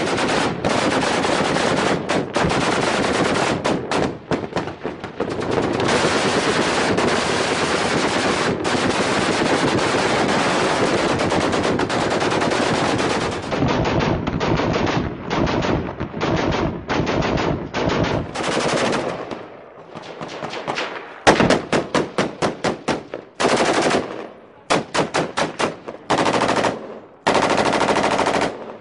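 Automatic fire from a light machine gun. Long unbroken bursts for the first dozen seconds, then shorter bursts with brief gaps, a pause about twenty seconds in, and a quick string of short bursts near the end.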